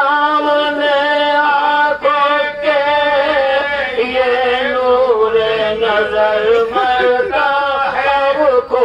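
Men chanting an Urdu marsiya, an elegy for the martyrs of Karbala, in a slow melodic recitation with long held notes that waver and glide in pitch.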